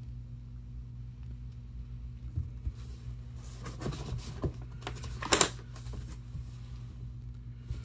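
Light clicks and rustles from hands handling painting supplies and paper on a table, bunched in the middle with the sharpest click a little past halfway, over a steady low hum.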